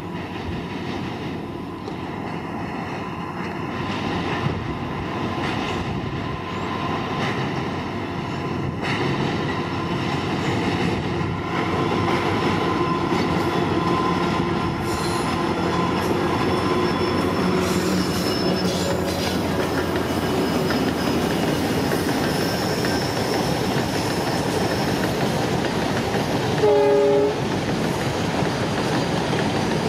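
Diesel-hauled train rumbling and clattering over a steel girder bridge, growing louder over the first dozen seconds, with thin high wheel squeals. Near the end the locomotive's horn sounds one short blast of about a second.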